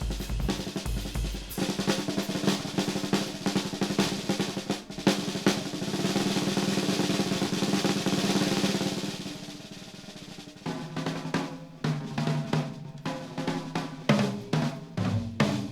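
Jazz drum kit played alone: fast snare rolls and cymbal wash swell to a peak about eight or nine seconds in and drop back near ten seconds. Then come separate tom-tom strikes at different pitches.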